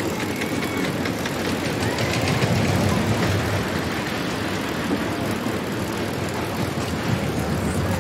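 Theme-park ambience: a steady low mechanical rumble under faint crowd chatter, swelling briefly about two to three seconds in.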